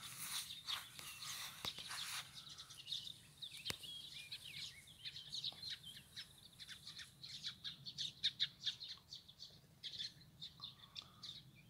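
Small birds chirping in short, high calls, some with quick rising and falling glides, over soft rustling of footsteps on a grassy path.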